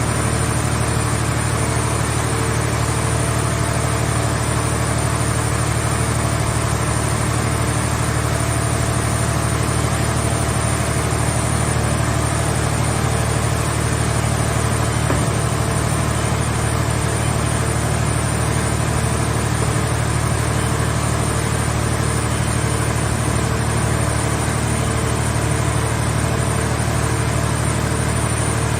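Scrap car-body baler's power unit running steadily, a continuous low engine-like drone with a faint pulsing hum above it.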